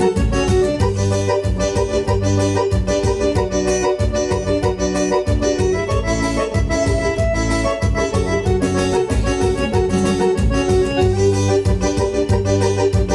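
Forró music: an electronic keyboard plays an organ-like melody over a steady bass beat.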